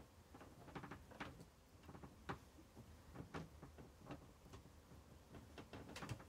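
Old wooden bed with worn slats faintly creaking and clicking in an irregular run of sharp ticks as someone steps on the mattress, the loudest a little over two seconds in and near the end.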